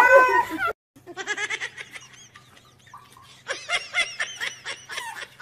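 A cat's loud, wavering meow, cut off under a second in. After a short gap come quieter broken sounds, most of them about 3.5 to 5 seconds in, which are most like soft laughter.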